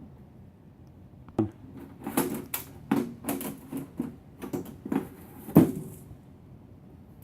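Desktop computer case being handled as its cover comes off: a run of sharp knocks and rattles over about four seconds, the loudest near the end.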